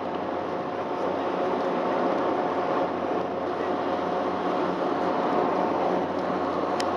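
Steady machinery hum from a large container ship alongside the quay, with a few faint steady tones in it and one short click near the end.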